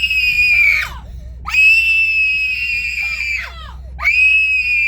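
A child shrieking: long, very high-pitched screams of about two seconds each, one after another, each trailing off with a drop in pitch, over the steady low rumble of the school bus.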